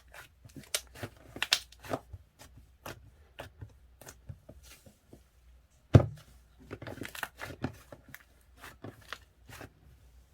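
Close handling noises: scattered crinkles, rustles and small taps, with one loud knock about six seconds in.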